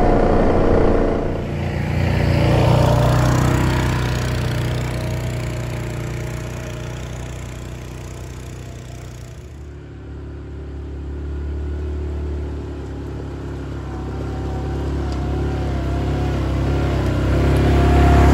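The single-cylinder engine of a 2017 Yamaha Grizzly 700 ATV running steadily, heard from on board and slowly getting quieter. After a cut, about halfway through, the same ATV approaches along the trail, its engine growing louder until it is close near the end.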